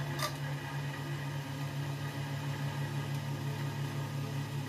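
Small CNC lathe spindle running with the chuck turning while a turning insert cuts down the shank of a milling cutter, throwing long unbroken blue chips. A steady machine hum, with one sharp click just after the start.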